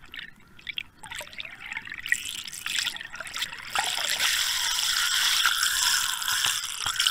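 Water splashing and gurgling around an underwater fishing camera as it comes up through the surface. It starts as scattered bubbling clicks and builds into loud, steady rushing and splashing about two seconds in.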